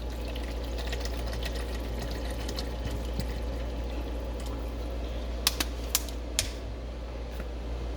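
Water being poured into a measuring cup, with light plastic ticks from the container. A few sharp clicks follow a little past halfway.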